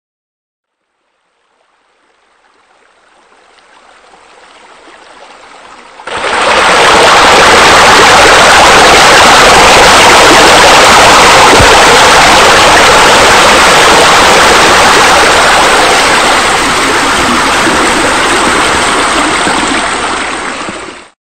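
Rushing, splashing water of a waterfall spilling over an edge, a steady noise. It fades in faintly, becomes suddenly loud about six seconds in, and fades out near the end.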